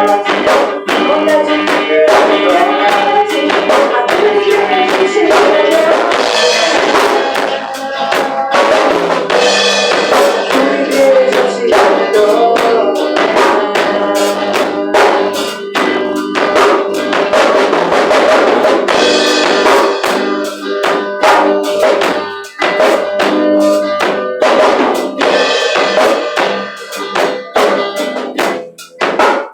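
Live band playing a worship song, with a drum kit keeping a steady beat under singing and instruments.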